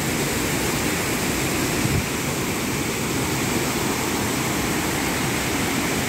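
A small waterfall: water pouring down in a steady, even rush.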